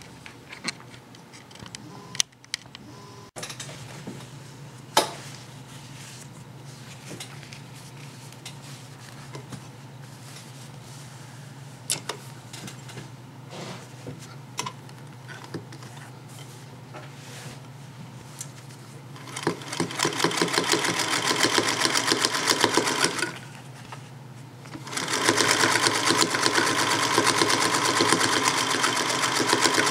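Singer 221 Featherweight sewing machine: scattered light clicks over a low hum. About twenty seconds in, it starts stitching at speed with a fast, even rattle, stops briefly, then runs again.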